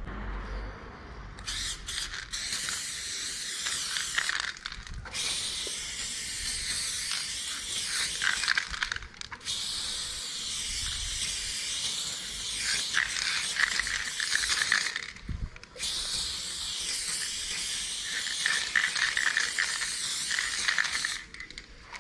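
Aerosol spray paint can spraying onto a wall: a steady hiss in four long bursts of several seconds with short pauses between them, stopping near the end.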